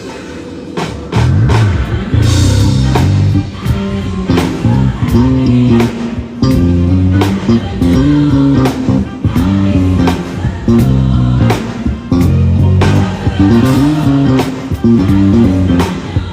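Live band playing at a sound check: a prominent electric bass line over a drum kit beat, with guitar.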